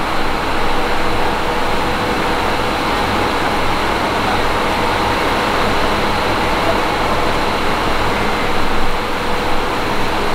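Large flood-control pumps running steadily, discharging water that gushes and churns out of the outlet pipes into the river: a loud, even rushing with a low mechanical hum underneath.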